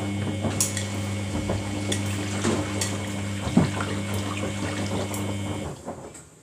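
Samsung washing machine taking in water for its rinse: water rushing into the drum with a steady electric hum, cutting off about six seconds in.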